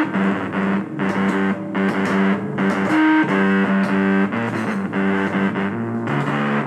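Music led by a distorted electric guitar playing a riff of short repeated notes in a steady rhythm.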